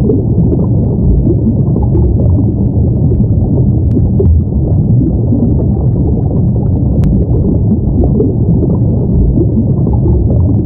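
Steady, loud underwater ambience: a deep, continuous rumble with a bubbling texture and nothing pitched in it.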